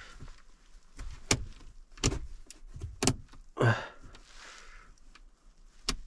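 Handling noise in a vehicle cab: several sharp clicks and knocks at irregular intervals, with a brief rustle about halfway through.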